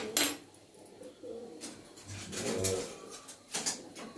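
A metal kadai full of dry red chillies is shifted and scraped at the start, giving a short clatter and rustle. A pigeon coos softly a couple of times about halfway through, and a few light clicks follow near the end.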